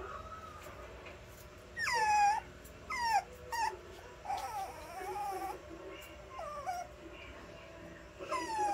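Puppy whimpering while its nails are being clipped: a string of short high cries, most sliding down in pitch, with the loudest about two seconds in and another near the end.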